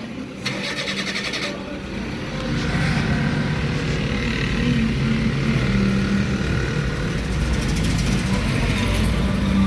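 Car engine and road noise heard from inside a moving car, growing louder about two seconds in and then holding steady.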